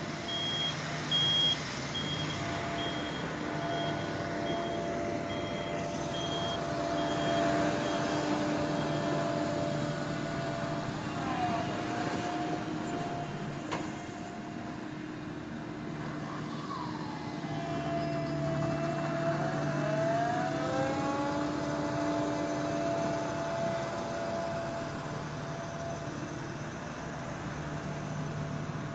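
Diesel engines of road-works machinery and passing trucks and cars running steadily, with a road roller working the gravel bed. A reversing alarm beeps at an even pace and stops about seven seconds in; engine pitch rises and falls a few times later on.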